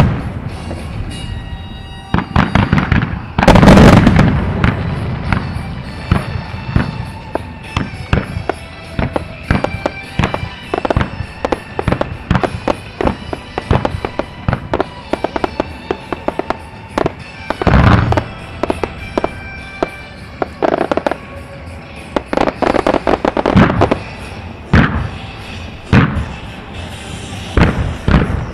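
Music starmine fireworks: a dense barrage of shell bursts and crackle, with a big boom about four seconds in and another a little before eighteen seconds. Music plays underneath.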